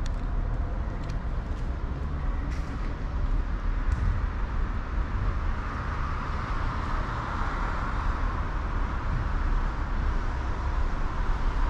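Steady low rumble of road traffic, swelling in the middle as a vehicle passes, with a few faint clicks early on.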